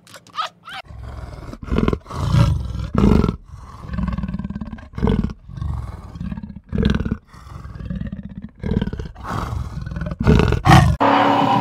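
Cheetah growling: a run of low, rasping growls, one after another, each about half a second to a second long.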